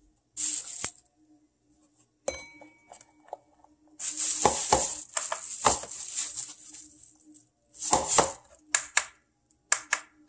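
Kitchen handling noises around a bowl on a digital kitchen scale: a sharp clink with a brief ring about two seconds in, and several short noisy bursts of a plastic food container being handled and opened, the longest from about four seconds in.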